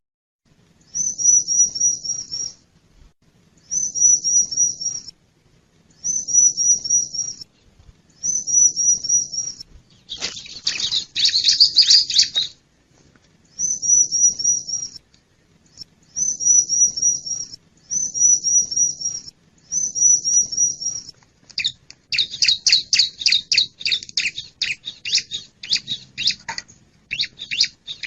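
Bar-winged prinia (ciblek) singing: high, rapid trilled phrases of chirping notes, each about a second and a half long, repeated with short pauses. In the last few seconds it changes to a longer, faster unbroken run of chirps.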